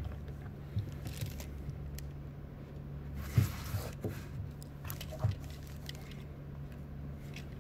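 Light clicks and rustles of hands handling a plastic Transformers Earthrise Sunstreaker action figure, with a slightly firmer tap about three and a half seconds in, over a steady low hum.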